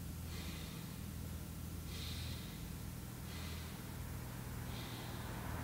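A man breathing in and out through his nose with his cheeks held full of air: about four soft nasal hisses, roughly one every second and a half. This is the first exercise of didgeridoo circular breathing, where the breath runs separately from the air held in the cheeks.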